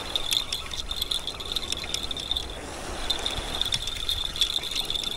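Spinning reel cranked steadily to retrieve line against a hooked fish: a fast, even whirring click from the reel's gears and anti-reverse, stopping briefly just under three seconds in before the cranking resumes.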